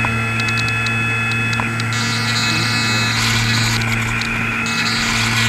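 An RC air boat's electric motor and propeller running steadily, a low hum with higher whines above it and light ticking.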